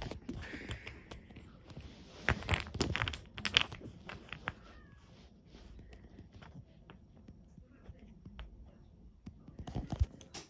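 Clicks and knocks of wooden Jenga blocks and plastic toy track being handled and set down, in a cluster about two to four seconds in and again near the end.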